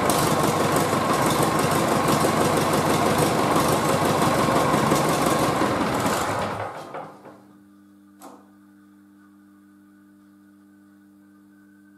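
Nuffield tractor engine running steadily on a test stand during its first test run, then shut off about seven seconds in and running down to a stop over about a second. A single click follows, then only a faint steady hum.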